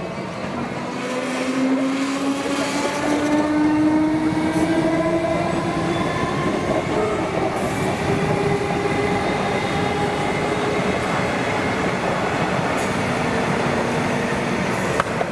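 Electric suburban train accelerating, its traction motors giving a whine that climbs in pitch over several seconds. Steady wheel-and-track noise runs underneath.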